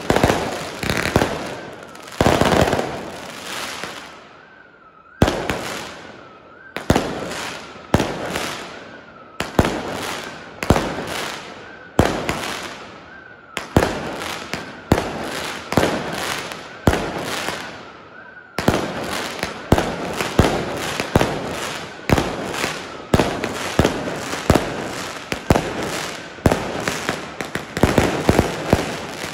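A firework battery fired from the street, sending up a rapid series of shots and aerial bursts, each bang echoing off the surrounding buildings. The bangs come about once a second, pause briefly early on, then come closer together about two-thirds of the way through.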